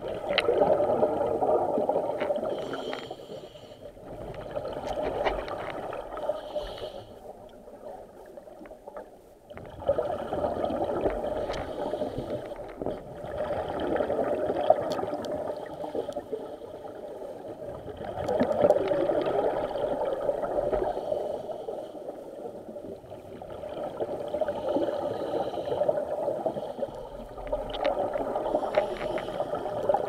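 Scuba diver breathing through a regulator underwater: a gurgling rush of exhaled bubbles every few seconds, with quieter gaps between breaths.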